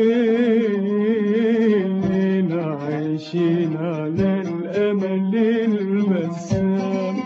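A man singing a long, wavering melismatic line in maqam Kurd with oud accompaniment.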